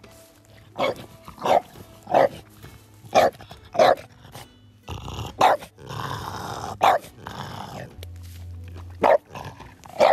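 French bulldog barking in short, sharp barks, about nine of them at uneven gaps, with a rough, noisy stretch between barks around the middle.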